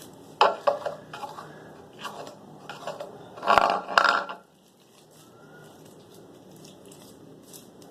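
Crunchy slime with styrofoam beads being pulled and peeled off a small plastic container, crackling and squelching in several bursts during the first half, the loudest a little after three seconds in, then only quiet handling.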